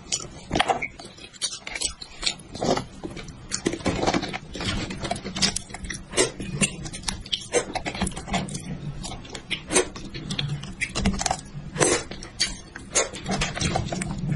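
Close-miked eating: wet chewing and lip-smacking, with irregular sticky clicks and crackles as braised meat and cartilage are pulled off a spicy sheep head by hand.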